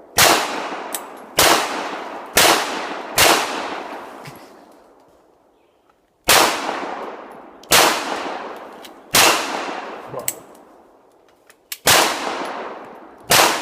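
Gunshots: nine single shots fired at an unhurried, uneven pace, each with a long echoing tail, with a pause of about three seconds partway through.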